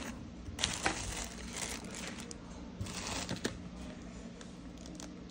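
Soft rustling and light handling noises as hands move small metal coaxial connectors about, with a couple of faint clicks and a faint steady low hum underneath.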